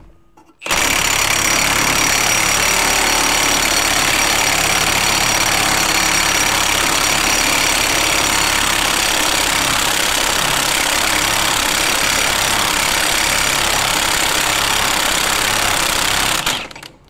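Milwaukee cordless impact wrench hammering on the 46 mm rear axle nut of a VW bus to break it loose and run it off. It starts abruptly about a second in, hammers loudly and without a break, and cuts off just before the end.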